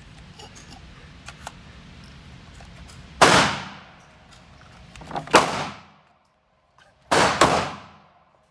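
Three loud gunshots about two seconds apart, each followed by a ringing echo tail off the hard walls of an indoor shooting range.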